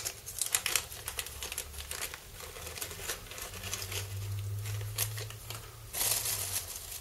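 Small clear plastic packet crinkling and crackling between the fingers as it is worked open, with a louder burst of crinkling about six seconds in.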